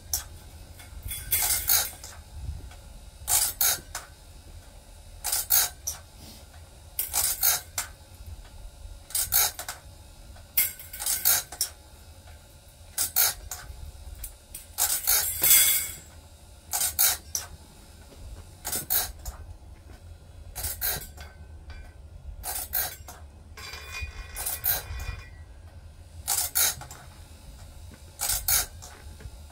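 Wood-Mizer BMS250 bandsaw blade sharpener grinding the blade's teeth: a short grinding scrape about every two seconds as the wheel works tooth after tooth, over a low steady hum.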